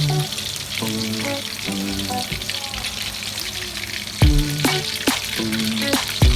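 Food sizzling as it fries in a pan, a steady hiss, with a few sharp knocks about four seconds in and near the end.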